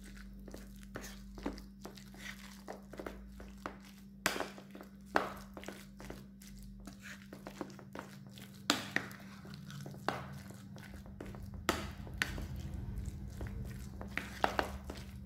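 Spoon stirring a thick corn-fritter batter of sweet corn kernels and flour in a ceramic bowl: wet squelching with irregular clicks and knocks of the spoon against the bowl, the sharpest knocks about four, nine and twelve seconds in. A steady low hum runs underneath.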